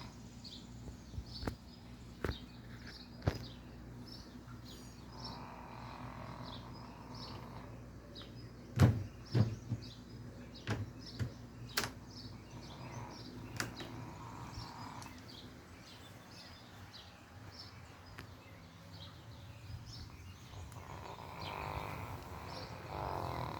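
Small dog snoring in deep sleep, a few long snores some seconds apart. Birds chirp throughout, and several sharp knocks come about nine to twelve seconds in, the loudest of them first.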